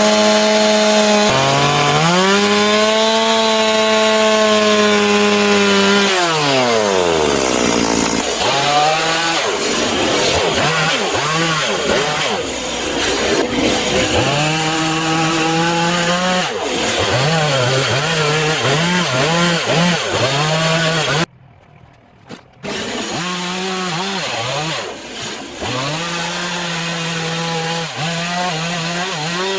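Two-stroke chainsaw carving into a wooden block, its engine pitch dropping and recovering again and again as the chain bites into the wood and is eased off. About two-thirds through it cuts out briefly, then comes back at high revs.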